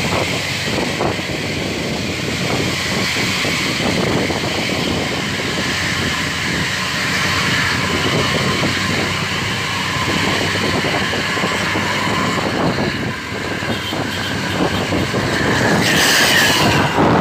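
Hino bus diesel engine running loud through an aftermarket racing exhaust, a continuous coarse, pulsing exhaust note heard from just behind the tailpipes. A short, sharp hiss comes about a second before the end.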